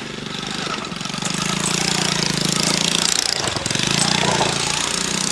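Small engine running with a rapid, even chugging beat, briefly dipping and picking up again about three seconds in.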